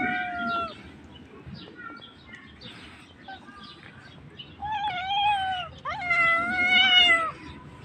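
A cat meowing. There is a short falling meow at the very start, then two longer meows one after the other in the second half, and the last is the loudest.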